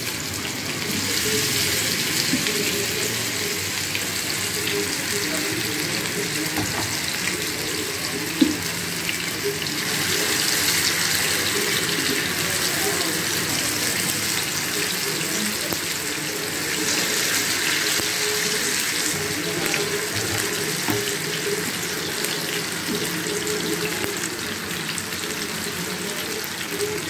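Marinated chicken pakora pieces sizzling in hot oil in a frying pan, a steady hiss that swells louder a few times as more pieces go in. A single sharp knock about eight seconds in.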